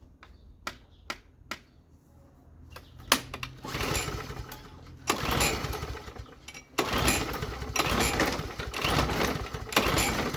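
A few sharp clicks, then a gasoline walk-behind lawn mower engine turning over and running in repeated surges of about a second each.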